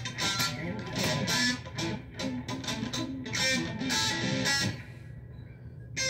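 Electric guitar played in quick runs of picked single notes, pausing for about a second near the end before starting again.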